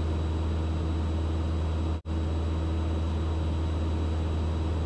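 Steady in-cabin drone of a 1964 Mooney M20E in level cruise. Its four-cylinder Lycoming IO-360-A1A engine and propeller run at a cruise setting of 23 inches of manifold pressure, giving a deep, even hum with a fainter steady tone above it. The sound drops out for an instant about two seconds in.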